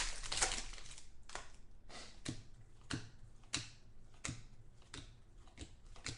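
Trading cards being handled and flipped through, with about ten crisp clicks of card stock against card or table, irregularly spaced about every half second.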